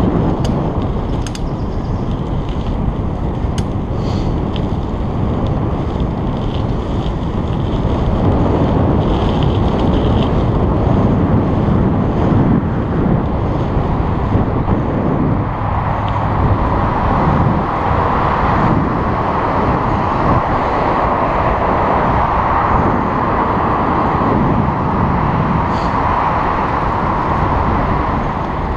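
Wind buffeting the microphone of a camera riding along on a moving bicycle, a steady rush of noise with tyre and road noise under it. A few sharp clicks come in the first few seconds, and a steadier higher hum joins about halfway through.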